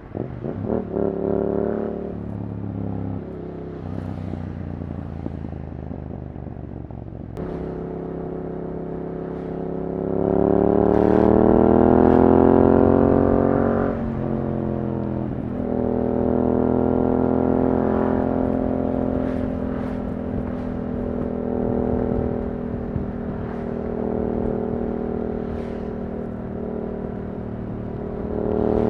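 Yamaha R7's parallel-twin engine through an Akrapovič exhaust while riding: the exhaust note climbs hard under acceleration from about ten seconds in, drops off sharply around fourteen seconds, then settles into a steadier cruise with small rises and falls.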